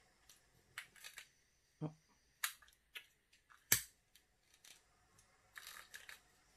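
Irregular small clicks and taps, about ten in all, with one sharper knock near the middle and a quick cluster near the end.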